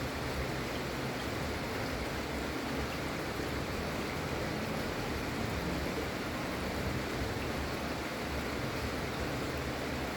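Gentle, steady rain falling, an even hiss with no single drops or other events standing out.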